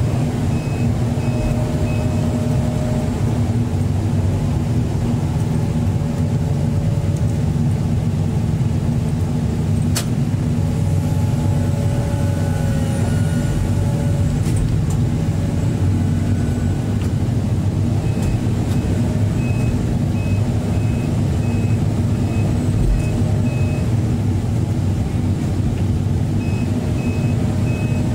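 Hydraulic excavator's diesel engine running steadily under load as the boom and bucket are worked, heard from the cab. A warning beeper sounds in a steady run of short beeps, about two a second, for the first two seconds and again from about two-thirds of the way in.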